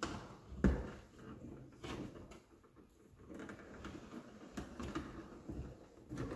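Handling noise at an electrical wall box: irregular clicks, light knocks and rustling as wires and a small plastic part are pushed and fitted together, with one louder thump a little under a second in.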